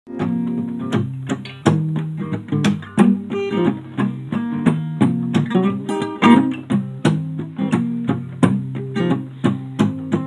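Acoustic guitar strummed in a steady rhythm, its chords ringing on between strokes, with no singing yet.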